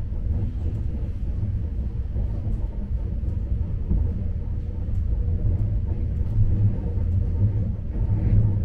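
Steady low rumble of a moving train.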